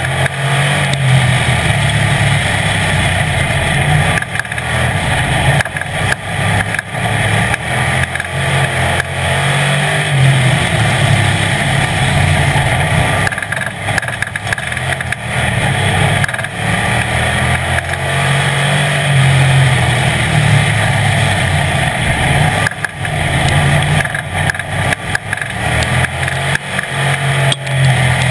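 Street stock race car's engine running hard at high revs, heard from inside the car, with the engine note dropping briefly several times as the driver lifts off for the turns and then pulling back up.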